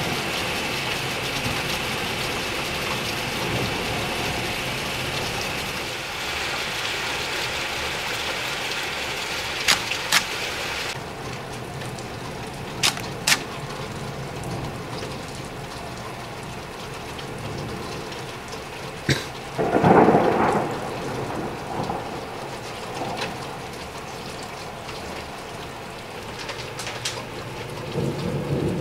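Thunderstorm rain: a steady wash of rain noise with several sharp ticks, and a louder rush lasting about a second roughly two-thirds of the way through.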